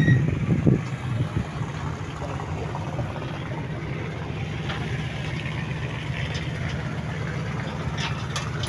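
River ferry's engine running, a steady low drone.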